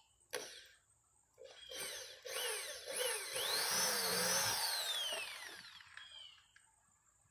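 Electric drill with a one-eighth-inch bit spinning up and boring into wood. Its motor pitch rises, dips and rises again, then winds down, after a sharp knock about half a second in.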